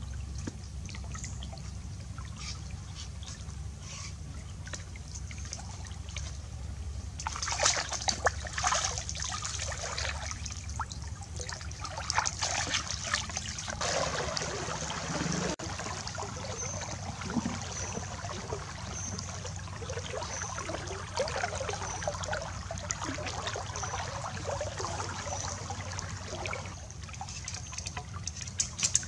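Water sloshing and splashing as a person wades through a shallow stream, over a steady trickle. The splashing grows heavier about 7 s in and again from about 12 to 16 s.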